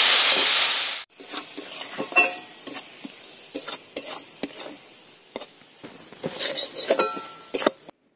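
Loud sizzle of a splash of water hitting hot oil and spice paste in a kadai, cut off sharply about a second in. Then a metal spatula scraping and tapping against the pan over a faint frying sizzle as the masala is stirred and fried down until the oil separates.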